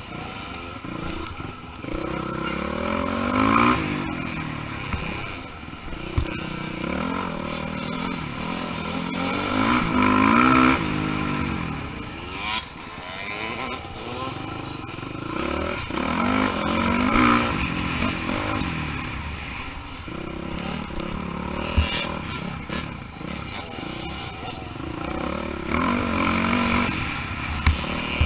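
Dirt bike engine heard from a camera on the bike, revving up and dropping back several times as the rider accelerates through the course, with a few short sharp knocks.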